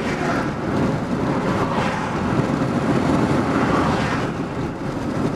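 Car driving along a road: steady engine and tyre noise that swells and eases a little.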